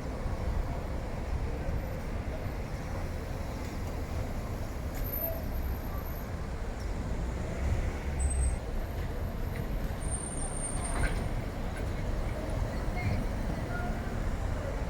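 Airliner engines at an airport: a steady low rumble that holds without a clear rise or fall.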